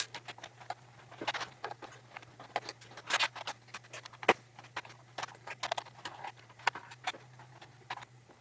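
Irregular plastic clicks, taps and scrapes from handling a membrane keyboard while it is taken apart, with a sharper knock about four seconds in.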